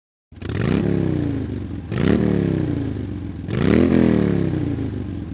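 Suzuki V-Strom 1050XT's V-twin engine idling and revved three times. Each blip rises quickly and falls back slowly to idle, about half a second in, two seconds in and near four seconds.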